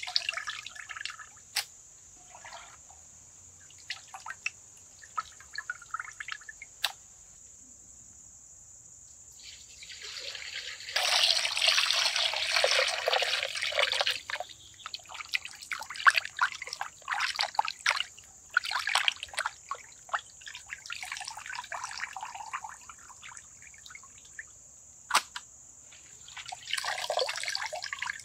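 Water being handled by hand: drips and small splashes, with a stretch of heavier pouring and splashing about a third of the way through, followed by quick wet clicks and splashes.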